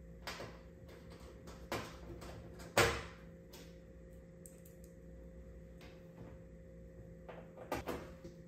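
Scattered clicks and knocks of a flat-screen TV's parts being handled during disassembly, the loudest about three seconds in and a small cluster near the end, over a faint steady hum.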